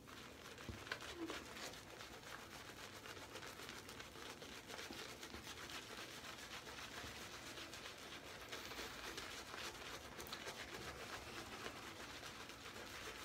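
Shaving brush working lather over a bearded face: a faint, steady, fast crackling and swishing of bristles through the foam.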